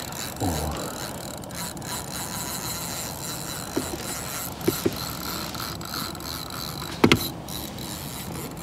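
A fixed-spool fishing reel being wound in while playing a hooked fish: a steady mechanical gear whirr. A few sharp clicks come through it, the loudest a little after seven seconds in.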